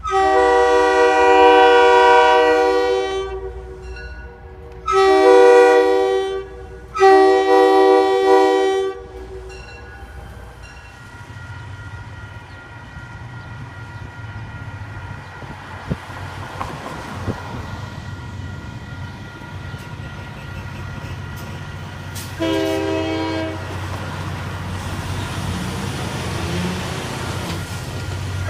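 Commuter-train diesel locomotive horn blowing a long, a short and a long blast, multi-note chords. Then a low rumble of an approaching train builds, with a short horn note about 22 seconds in.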